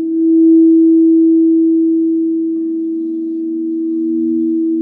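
Several frosted crystal singing bowls ringing together under mallets, long steady overlapping tones; a lower tone swells up about halfway through.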